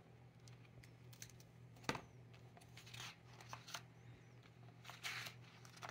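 Hardcover picture book being opened and its pages turned by hand: faint paper rustles and soft clicks, with a sharper tap about two seconds in, over a steady low hum.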